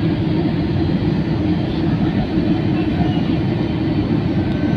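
Steady low noise inside a passenger airliner's cabin in flight: engine and airflow noise heard from a window seat.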